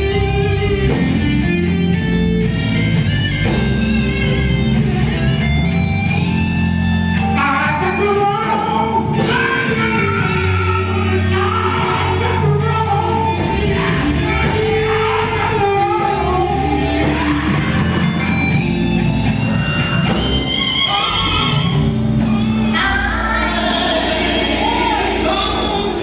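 Live gospel group singing with a band of electric bass, drums and guitar.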